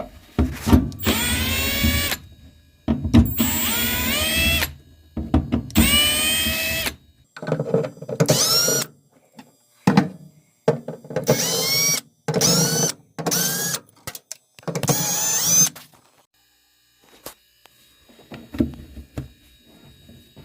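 Power drill running furnace collector-box screws in a series of short runs, each a second or two long, with the motor whine rising in pitch as it spins up. There are about ten runs, with the later ones shorter.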